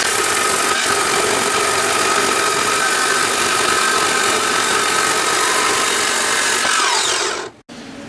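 Abrasive chop saw cutting through flat steel bar: a loud, steady grinding of the disc in the metal, with the motor's whine sliding down as it winds down near the end.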